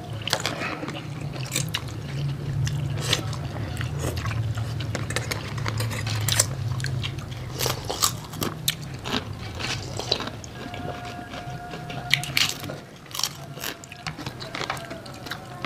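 Close-up eating sounds: curry noodle soup slurped and sipped, with chewing and many small sharp clicks, over a steady low hum.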